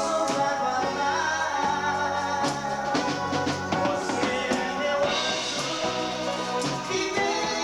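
Live dance band playing a song: singing over a drum kit and keyboards.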